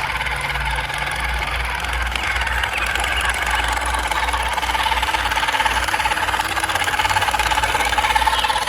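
A radio-controlled model vehicle running: a steady, slightly wavering whine over a low rumble.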